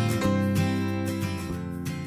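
Background music led by strummed acoustic guitar, getting gradually quieter as the piece ends.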